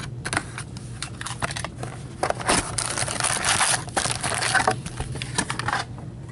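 Foil trading-card pack wrapper being torn open and crinkled by hand: scattered rustles and clicks, then a dense stretch of crackling from about two seconds in to nearly five.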